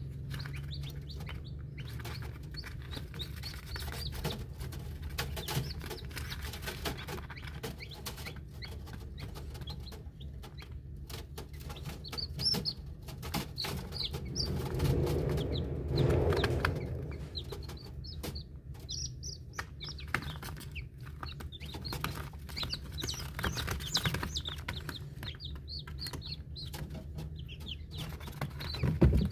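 Day-old chicks peeping: many short, high cheeps over a steady low hum.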